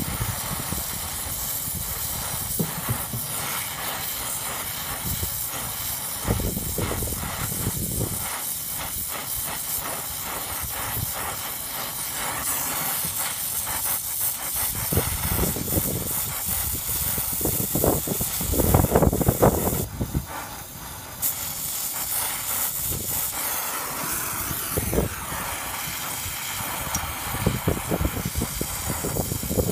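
Brazing torch flame hissing steadily while copper refrigerant line joints are brazed, with irregular low rumbles; the hiss cuts out for about a second roughly two-thirds of the way through, then resumes.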